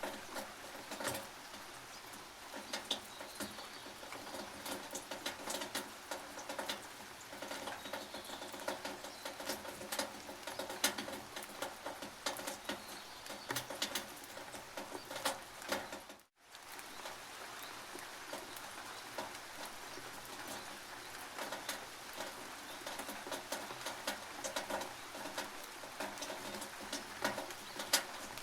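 Rain dripping and pattering on a tin roof: many separate, irregular drip clicks over a steady hiss. The sound cuts out completely for a split second about sixteen seconds in.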